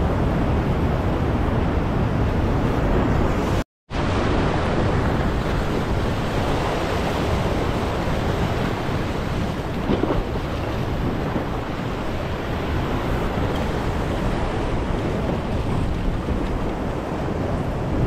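Ocean surf breaking against and washing over a low rock ledge: a steady rushing of water, mixed with wind buffeting the microphone. The sound cuts out completely for a moment about four seconds in.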